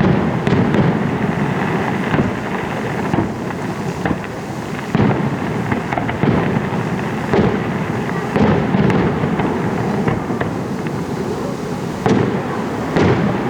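Fireworks display: aerial shells bursting in quick succession, with deep booms about once a second over a continuous crackling and rumbling.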